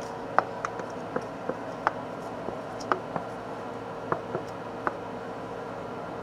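Slime being squished and worked in the hands, giving about a dozen small, sharp clicks and pops at irregular intervals.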